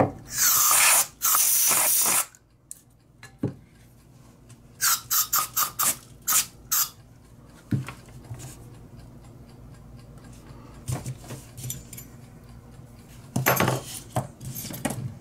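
A hiss lasting about two seconds, then a quick run of small metallic clicks and taps from handling the butane lighter's metal parts, and a shorter hiss near the end.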